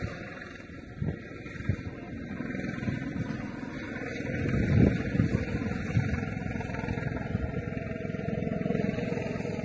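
Steady low rumble of a vehicle engine running, swelling about four to five seconds in, with faint voices and a few short knocks.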